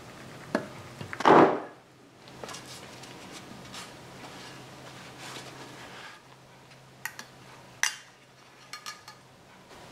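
Metal clinks and knocks of the cast aluminium cam cover and its bolts being handled as the cover comes off a Harley-Davidson Sportster engine. The loudest sound is a short clatter just over a second in; a few sharp clinks follow near the end.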